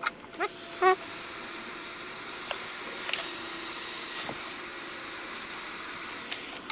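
Heat gun running, a steady blowing hiss with a thin high whine that rises as its motor spins up about a second in and stops just before the end. It is shrinking heat-shrink tubing over a freshly soldered wire splice.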